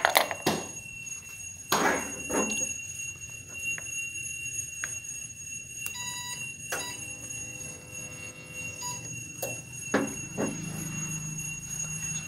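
A steady high-pitched electronic tone runs on, with a short beep about six seconds in followed by a brief buzz. Over it come a few sharp knocks and clicks as a tool works at the terminal clamp of an inverter battery, the loudest at the very start and again just before two seconds.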